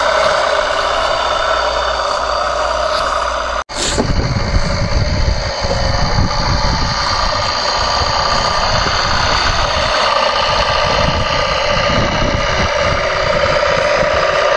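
Scale 1:10 RC GMC 8x8 truck's electric motor and gears whining steadily as it drives through mud, with a brief break in the sound just under four seconds in.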